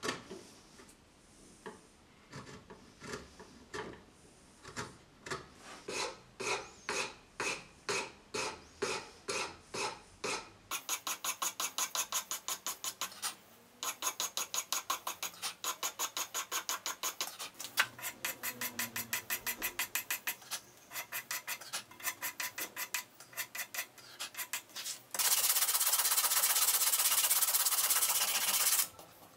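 Hand-abrading a mahogany knife handle in a vise: separate scraping strokes at first that gradually quicken, then a faster run of about three strokes a second after a break, and near the end continuous fast scrubbing with sandpaper.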